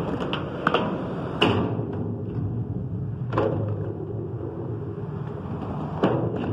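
A skateboard on a skatepark ramp: a low rumble of the wheels rolling, broken by several sharp clacks and thuds of the board striking the ramp and deck, loudest about a second and a half in and again about six seconds in as the skater drops in.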